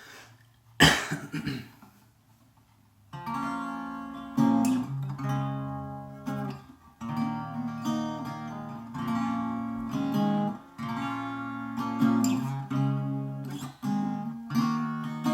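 A short loud knock or rustle about a second in, then from about three seconds a Gibson ES-125 archtop guitar strummed in chords, playing a song's intro.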